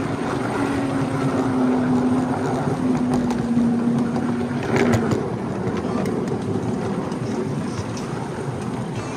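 Miniature ride-on railway train running along the track: a steady rumble and clatter of wheels on rail, with a drone from the locomotive that slowly falls in pitch. A sharp knock comes about five seconds in.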